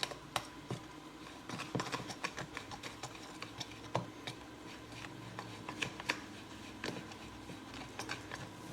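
A fork clicking and tapping against a mixing bowl as cornbread batter is stirred, a scatter of light, irregular clicks.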